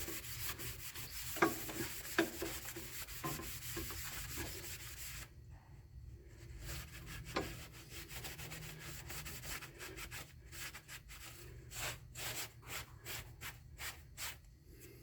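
Hand scrubbing of a greasy metal surface to clean off grease and scale: a steady stretch of rubbing for the first five seconds or so, then a run of short, quick strokes near the end, over a low steady hum.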